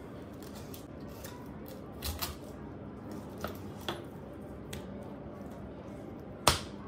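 Knife filleting a whole fish on a plastic cutting board: faint slicing and scraping along the backbone, with several light clicks as the blade meets bone and board. A sharp knock near the end is the loudest sound.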